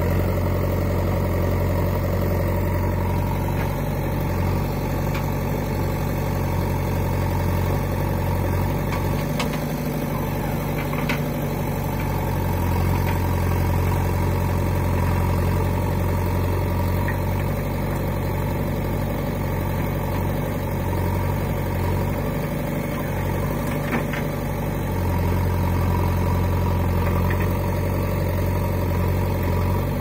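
JCB 3DX backhoe loader's four-cylinder diesel engine running steadily while the backhoe digs. Its low drone eases off twice, about a third and three quarters of the way through, then comes back.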